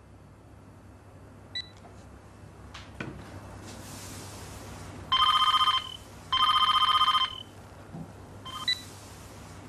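Cordless telephone handset ringing: two electronic trilling rings, each about a second long, a short pause between them. A short beep comes about a second and a half in and another near the end.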